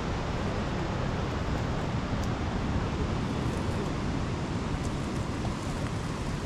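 Wind rumbling steadily on an action camera's microphone, heaviest in the low end.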